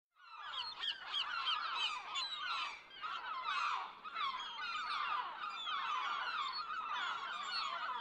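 A flock of birds calling all at once: a dense chorus of short, overlapping calls with no break, dipping briefly about three and four seconds in.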